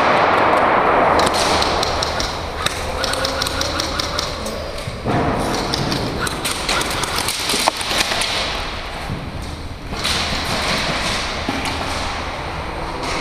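Airsoft game in progress: scattered sharp clicks and a few thuds over a steady rushing noise.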